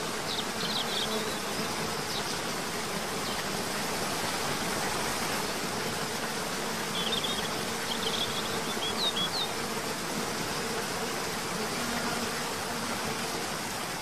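Cascading waterfall rushing steadily over rock tiers into a pool, with a few short high bird chirps near the start and again about seven to nine seconds in.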